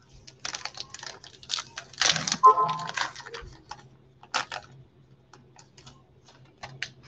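A trading-card pack wrapper crinkling and tearing in latex-gloved hands. A quick run of sharp crackles comes first, loudest about two to three seconds in, with a short squeak among them, then a few isolated clicks.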